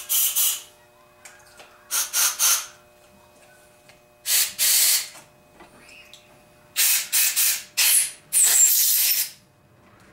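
Air blow gun blowing out the passages of a cleaned Weber ICT carburetor body, in short hissing blasts: about five bursts, each under a second, several of them quick double or triple pulses.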